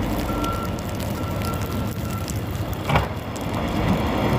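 Reversing alarm of a snow-removal vehicle beeping over a heavy diesel engine rumble, falling silent about two seconds in; a single loud clank follows about a second later.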